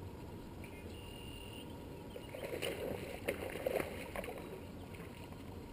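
Water lapping and splashing around a small boat, with a louder stretch of splashing and sharp clicks about halfway through.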